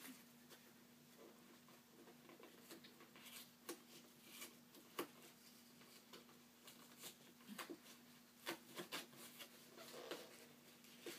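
Faint scratching, picking and crinkling of fingers working at the tight wrapping of a package, with scattered sharp little clicks, the loudest about five seconds in. A faint steady low hum runs underneath.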